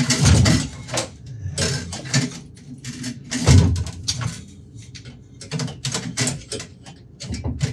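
Clanks, knocks and rattles of a kitchen faucet being handled and fitted in a stainless steel sink, with heavier thumps at the start and about three and a half seconds in.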